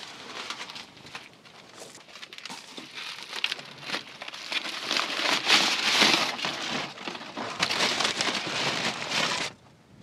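Aluminium foil being handled and peeled open by hand, crinkling and crackling in a dense run of quick ticks. It is loudest about halfway through and stops suddenly near the end.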